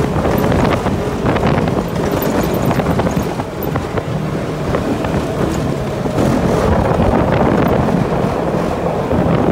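Polaris RZR side-by-side driving on a desert dirt track: steady engine running and tyre rumble, heavily buffeted by wind on the microphone in the open cab.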